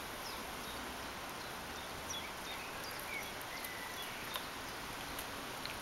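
Quiet outdoor background noise, steady throughout, with scattered faint high chirps and a few light clicks.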